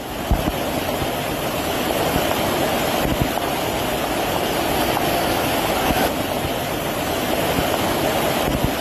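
Fast-flowing floodwater rushing through a street in a steady torrent.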